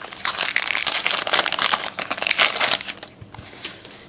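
Crinkling plastic packaging being handled, dense crackling for about three seconds that then dies down to a few faint rustles.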